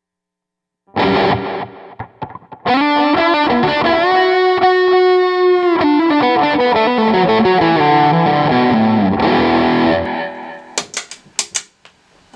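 Distorted electric guitar through a Digitech RP1000 multi-effects floorboard on a Marshall Plexi-style overdrive preset with reverb switched on. A chord is struck about a second in, then a lead line follows with a long held note and a descending run of notes. A few sharp clicks come near the end.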